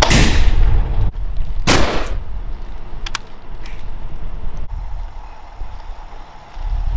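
Two loud gunshots about a second and a half apart, each dying away briefly, followed about a second later by two quick sharp clicks. Low wind rumble on the microphone runs underneath.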